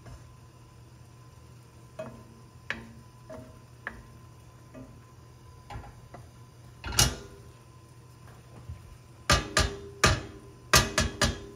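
Wooden spoon scraping and knocking against an enameled pot while ground meat is stirred: scattered light knocks, a louder one about seven seconds in, then a quick run of about seven sharp knocks near the end as the spoon is struck on the pot.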